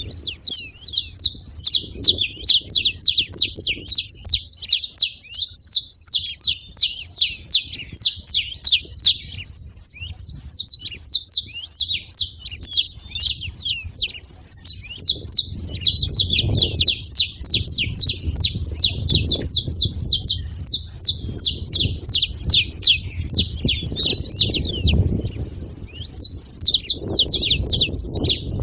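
A flock of saffron finches chirping together: a dense, near-unbroken stream of quick, high, down-sliding chirps from many birds at once, with a few short lulls, over a faint low rumble.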